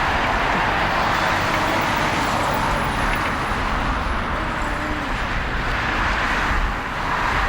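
Boeing 777F's twin GE90 turbofan engines running at high power, a steady jet roar as the freighter starts its takeoff on the runway.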